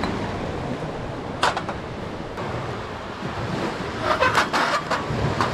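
Wind buffeting the microphone over the wash of small waves on the shore, with a few short scrapes and knocks about a second and a half in and again between about four and five seconds in.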